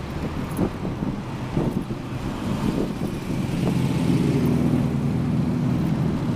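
Road traffic: car engines running close beside a bicycle in slow city traffic, with a few light knocks and rattles in the first half and a steadier engine hum from about four seconds in.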